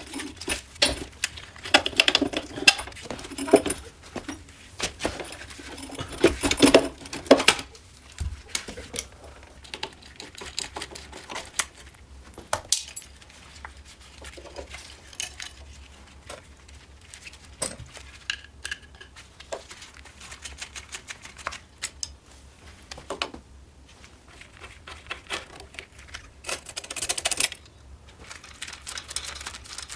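Metal parts and hand tools clicking, clinking and knocking as the Riga 12's front-end parts are handled and fitted. Two longer, busier spells of handling noise come about six seconds in and near the end.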